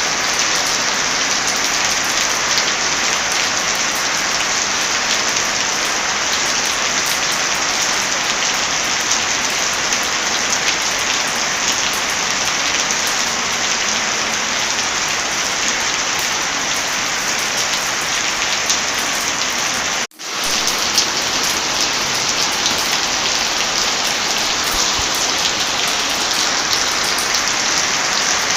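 Steady heavy rain, with small crackling pops of a wood fire scattered through it. The sound drops out for an instant about twenty seconds in and comes straight back.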